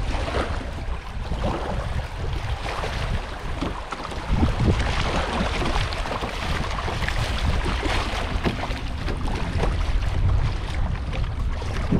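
River water rushing and splashing along a kayak's hull as it drifts through choppy current, with wind buffeting the microphone.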